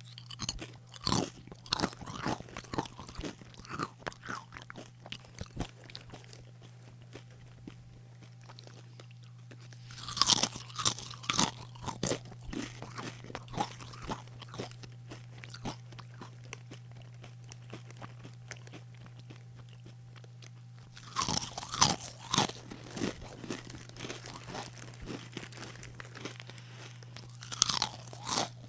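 A person eating potato chips: four bouts of loud crisp crunching, near the start, about a third of the way in, about two-thirds in and near the end. Each bout starts with a bite and tapers into quieter chewing crunches. A steady low hum runs underneath.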